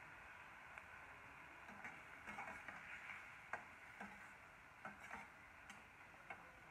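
A perforated metal spatula scraping and tapping against a metal pan while stirring chopped onions and tomatoes. Faint, scattered clicks and scrapes start about two seconds in, with one sharper knock midway, over a faint steady hiss.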